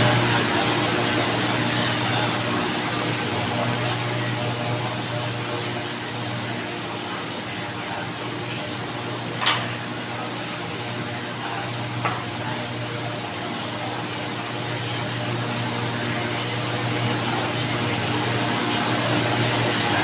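Steady low machine hum with a hiss over it. About halfway through comes a sharp click, then a softer one a couple of seconds later, as a coloured pencil is taken from its clear plastic case.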